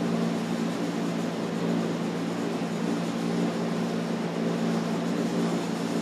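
A steady low mechanical hum that stays level throughout, with no distinct clicks standing out.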